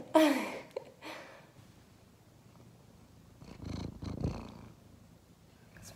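Domestic tabby cat purring, loudest about three and a half to four and a half seconds in, after a brief falling vocal sound right at the start.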